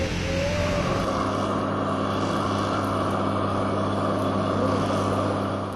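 An engine running with a steady drone that fades out near the end. A brief wavering tone is heard at the very start.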